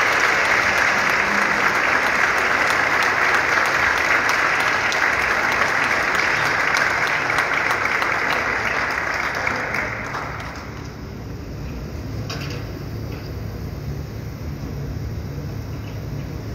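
Audience applauding, then dying away about ten seconds in, leaving a low steady hum with a few scattered claps.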